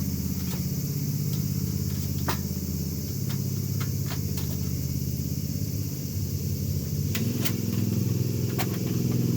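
A steady low engine-like drone runs throughout, its pitch shifting slightly near the end, with a scattering of short light clicks and clinks from the metal fire-pit parts being handled and fitted together.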